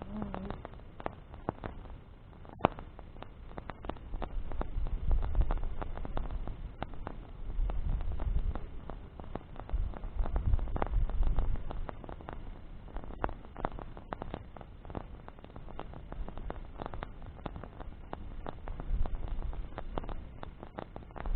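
Wood bonfire crackling, with frequent sharp snaps and pops, over low rumbling swells that rise and fall every few seconds.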